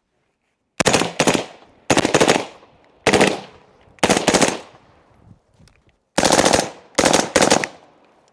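A rifle with a forced reset trigger fires six quick strings of a few rounds each, every string ringing out briefly before the next.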